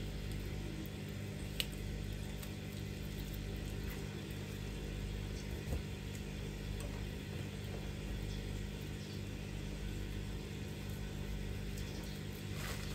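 Steady low machine hum with a couple of faint clicks.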